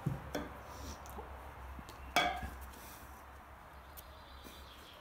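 A stainless steel food bowl on a tile floor clinks as a kitten tussles with a wand toy against it: two light knocks at the start, then one louder clank about two seconds in that rings briefly.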